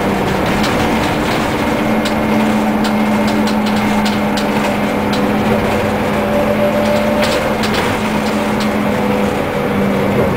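Leyland Lynx single-deck bus's diesel engine running while under way, heard from on board: a steady drone whose pitch rises and falls slightly, over road noise, with scattered light clicks.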